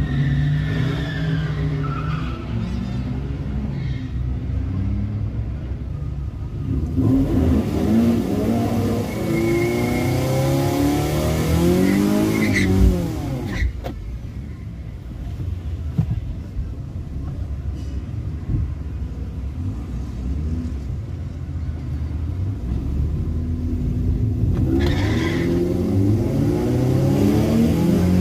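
Car engines heard from inside a car's cabin, running and revving, their pitch rising and falling repeatedly, with rising revs again near the end as a car accelerates away.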